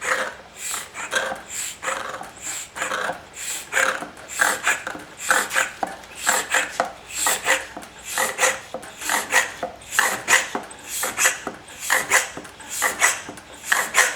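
Hand-pumped Liquivac vacuum oil extractor being pumped, a steady run of rasping strokes at about two a second: the pump is drawing a vacuum in the tank to suck the old oil out of the lawn mower's crankcase through the dipstick tube.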